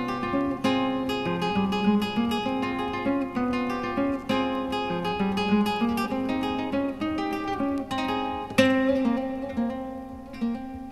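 Acoustic guitar music, picked and strummed, with a louder strummed chord about eight and a half seconds in.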